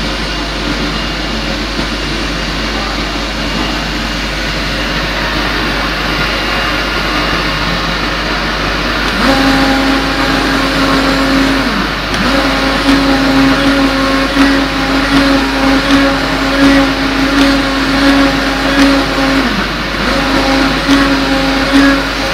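CNC oscillating-knife gasket cutter cutting a gasket sheet. Over a steady rushing noise, the vibrating knife starts about nine seconds in as a steady buzzing tone, and it drops out briefly twice.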